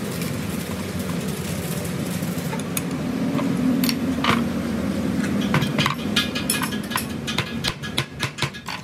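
Hammer blows on the steel yoke of a truck drive shaft's universal joint: a few knocks around the middle, then a quick run of sharp metallic strikes over the last three seconds or so, above a steady low engine hum in the background.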